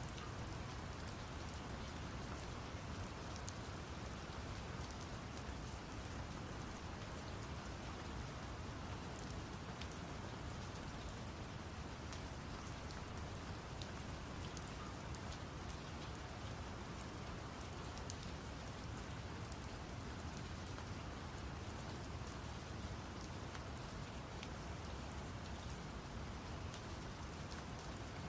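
Steady rain with many small drop ticks, laid over a deep, even brown-noise rumble; the sound holds constant throughout.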